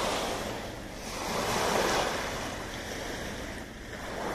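Small sea waves breaking and washing up a pebble beach, the surf swelling and ebbing, loudest about two seconds in.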